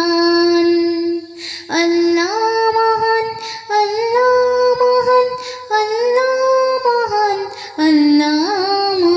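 A woman singing a gojol, an Islamic devotional song, in long drawn-out notes with a slight vibrato. The notes climb in steps and fall back near the end, with short breaks between phrases.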